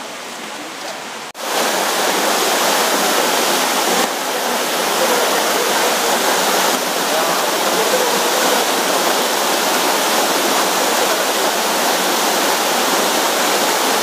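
Waterfall rushing steadily as several streams pour over rock ledges into a plunge pool. It comes in abruptly about a second in, much louder than the fainter rushing before it.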